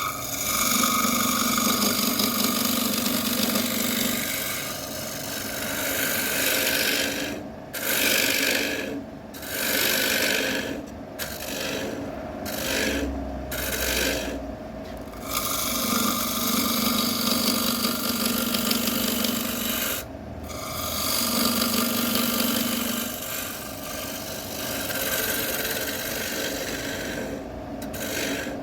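Wood being worked against a spinning wood lathe: a tool or abrasive rasping continuously on the turning bowl. It stops briefly several times between about 7 and 15 seconds in and again at about 20 seconds.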